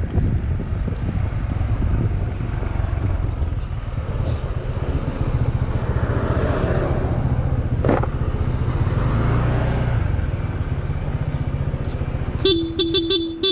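Wind noise and road rumble on the riding camera as the Honda ADV160 scooter slows and comes to a stop. About a second before the end, a horn gives several short toots in quick succession.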